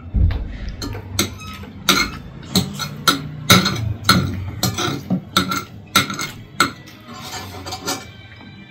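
Metal spoon clinking and scraping against a ceramic plate: a dozen or so sharp clinks at irregular intervals, some with a short ring. A low thump right at the start.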